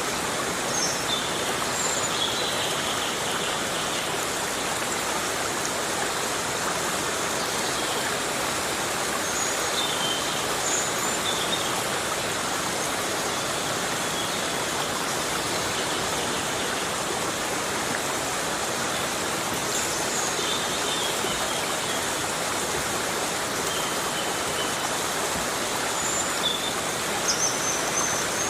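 Steady heavy rain falling through forest foliage, an even hiss with brief high chirps here and there.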